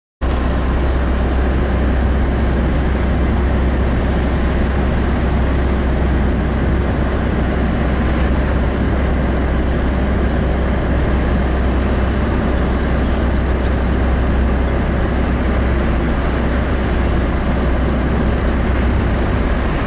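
Steady noise of a moving car heard from inside the cabin: a strong low rumble of engine, tyres and wind under an even rushing hiss. It cuts in suddenly just after the start.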